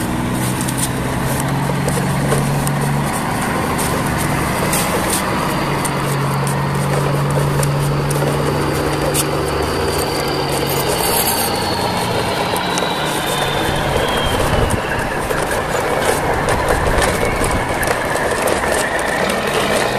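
A convoy of plastic toy dump trucks rolling and rattling over stone paving, with a steady low hum running under the noise.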